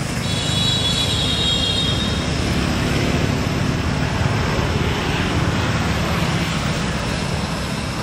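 Motor traffic: the steady noise of a vehicle passing close by, which drops away sharply at the end. A high, steady tone sounds over it for about the first two seconds.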